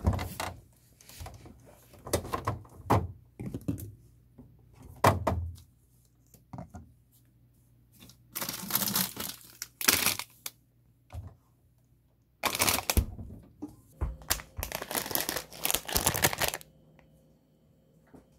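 Close-miked crinkling and tearing of jelly and drink packaging, with scattered taps and knocks and longer rustling bursts of a second or two, the loudest in the middle and again near the end.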